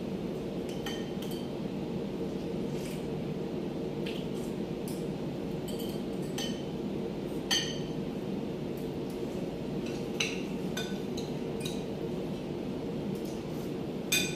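Spoons and forks clinking and scraping on plates as two people eat: scattered light clinks, a couple of them louder, over a steady low hum.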